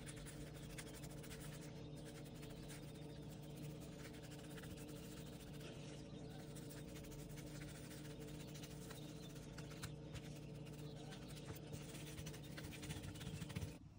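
Soft, faint strokes of a bristle paintbrush dabbing liquid onto a leather knife sheath, over a steady low hum.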